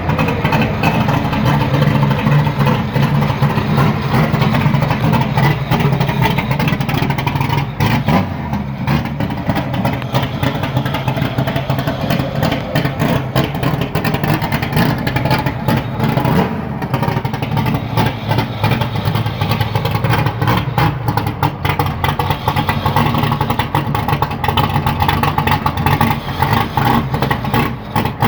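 Naturally aspirated performance car engine running hard at high revs, its pitch holding fairly steady, with a brief drop about eight seconds in and again around sixteen seconds in.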